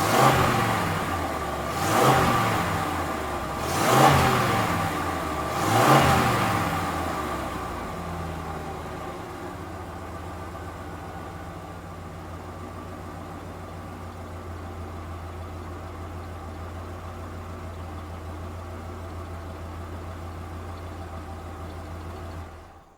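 Truck engine revved four times, about two seconds apart, each rev climbing and dropping back. It then settles into a steady idle that fades out near the end.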